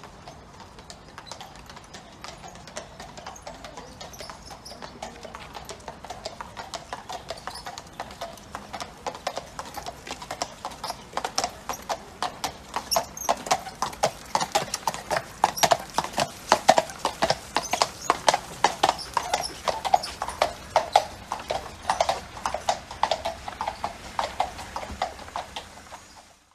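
Hooves of a pair of horses pulling a horse-drawn hearse, clip-clopping on tarmac at a walk. The steps grow louder as the horses come closer, are loudest in the middle of the stretch, and fade toward the end.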